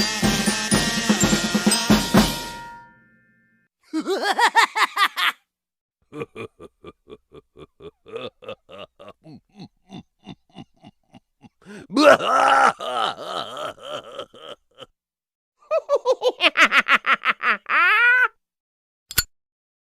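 A string of short comedy sound effects. A drum beat stops about two and a half seconds in. Then come several separate bursts of quick, repeated pitched pulses with wavering pitch, with silences between them, and a single sharp click near the end.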